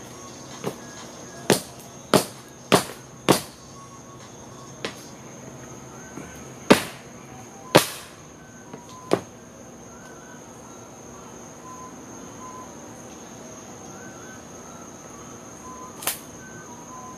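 Sharp wooden knocks and cracks as a wooden pallet is broken apart underfoot. About ten come in an uneven run over the first nine seconds and one more near the end. A steady high insect trill runs behind them.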